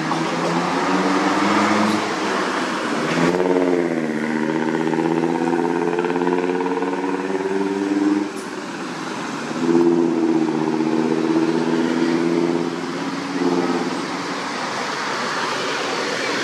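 A motor vehicle's engine running at a steady pitch in several stretches, with a brief dip and rise in pitch about three seconds in.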